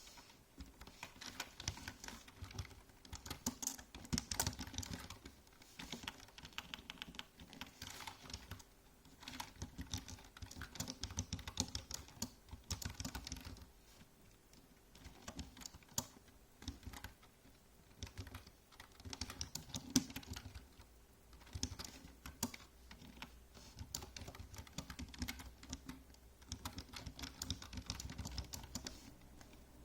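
Typing on a computer keyboard: flurries of rapid key clicks lasting a few seconds each, broken by short pauses, with one harder keystroke about twenty seconds in.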